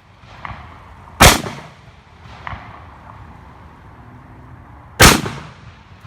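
Two gunshots about four seconds apart, each a sharp crack with a short echoing tail, with a couple of faint ticks in between.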